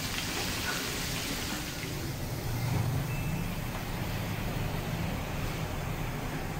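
Boiled beef chunks sizzling and steaming in a frying pan on a gas stove, over a steady low rumble. About two seconds in, a glass lid goes on the pan and the sizzle grows duller.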